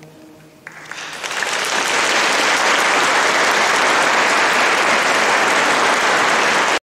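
The last sung chord of a choir fades away, then audience applause breaks out a little under a second in, swells over about a second and holds steady until it cuts off abruptly near the end.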